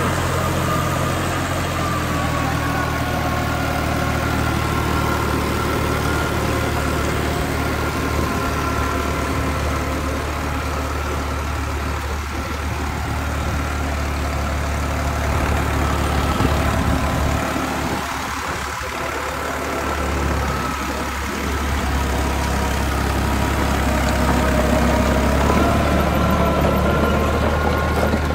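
Diesel farm tractor engine running steadily under load while it pulls a rotary tiller through dry soil. Steady higher tones sit above the engine's low drone.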